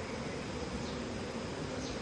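Forest ambience of insects buzzing, with a faint steady high-pitched tone. Two brief falling chirps come about a second in and near the end.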